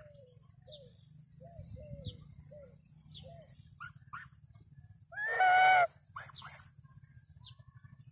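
Brown Chinese geese calling: a run of soft, short, falling calls, then one loud drawn-out honk about five seconds in. Small birds chirp high and faint throughout.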